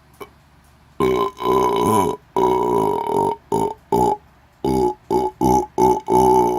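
Loud, deliberate belching starting about a second in: two long belches, then a quick string of shorter ones with brief breaks between them.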